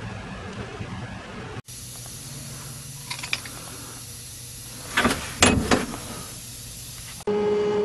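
Steady hum inside a sandblast cabinet, with a few light clicks and then a louder clatter of rusty metal bellows nozzle parts being set down on the cabinet's metal grate. Near the end the sandblaster starts up with a sudden steady hiss and hum.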